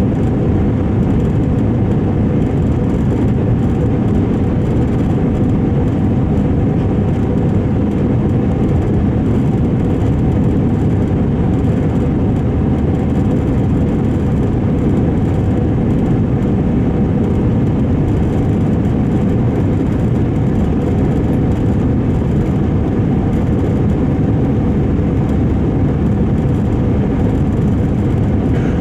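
Steady inside-cabin noise of an Airbus A321 climbing after takeoff: a low, even rumble of engines and airflow, with a faint steady hum over it.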